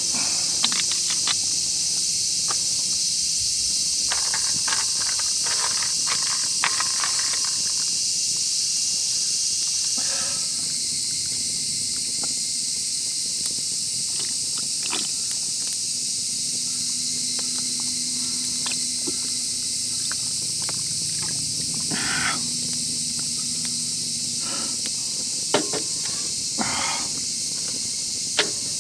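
Steady, high-pitched hiss of a summer insect chorus, with occasional short crackles and clicks from the campfire.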